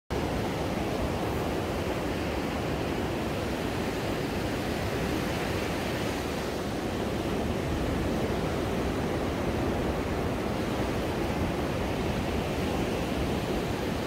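Sea waves breaking and washing up a sandy beach: a steady rushing surf without pauses.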